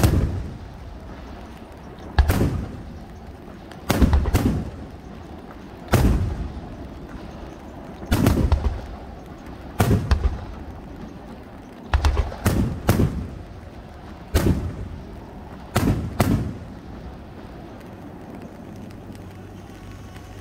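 Aerial firework shells bursting overhead with sharp bangs about every two seconds. Some come in quick pairs or threes, and each trails off in an echo. The bangs stop about three seconds before the end.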